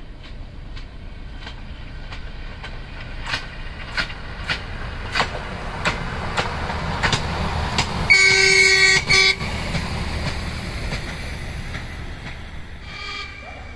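Two-car diesel railcar set running past, with a low engine rumble and wheels clicking over rail joints about twice a second, growing louder as it nears. A horn blast of about a second follows, then a shorter, fainter toot near the end.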